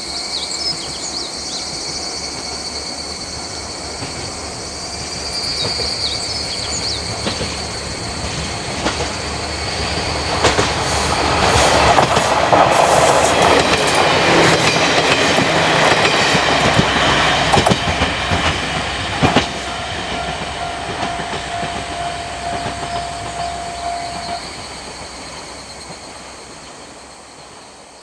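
A KiHa 40-series diesel railcar passes: its engine and its wheels clacking over the rail joints grow louder to a peak in the middle, then fade away near the end.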